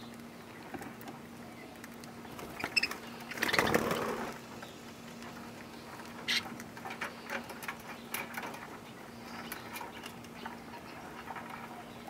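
Budgerigars pecking and husking seed from a hand: a scatter of small, sharp clicks and cracks. About three and a half seconds in there is a louder rustling flurry as the birds shift and flap about.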